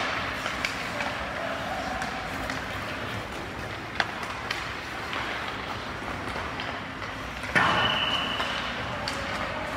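Crowd noise echoing in a large hall, with a few sharp knocks and a short, high whistle-like blast about three-quarters of the way through.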